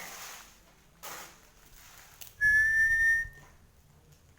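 A single high whistle, held steady and rising slightly for just under a second, about two and a half seconds in. A short breathy hiss comes about a second in.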